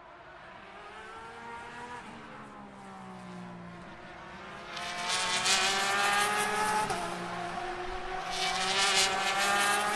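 GT Le Mans race car accelerating up through the gears, its engine note climbing in pitch and dropping back at each upshift, and getting much louder about halfway as it nears. Two stretches of harsh hiss ride over it, about halfway and near the end.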